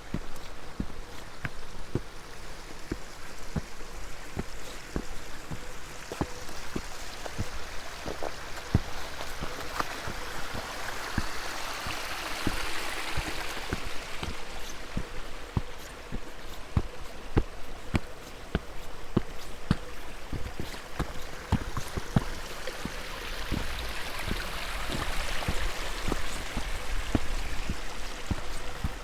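A hiker's footsteps on a mountain path, irregular crunching steps, over a steady rush of wind noise that swells twice, about a third of the way in and again near the end.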